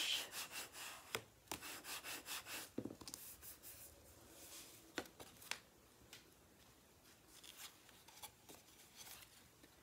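Faint rubbing of cardstock as a freshly glued paper layer is burnished flat: quick repeated strokes, about two or three a second for the first few seconds, then a few soft paper-handling clicks as the card is picked up.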